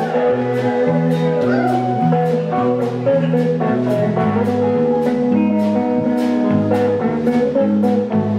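Live honky-tonk country band playing: guitars over a stepping bass line, with the drum kit keeping a steady cymbal beat of about two strokes a second.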